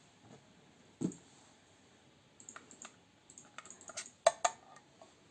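Scattered sharp clicks and light knocks of kitchen things being handled while ingredients are prepared: a dull knock about a second in, a few small clicks, then a quick cluster of louder clicks near the end.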